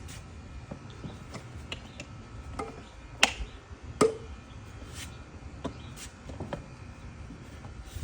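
Scattered clicks and knocks of air filter housing parts being handled and fitted in a car's engine bay, the two loudest about three and four seconds in.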